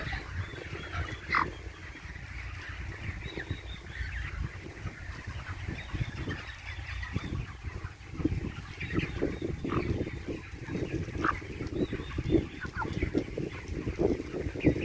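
A flock of chickens clucking, with many short calls overlapping throughout, over a low rumble.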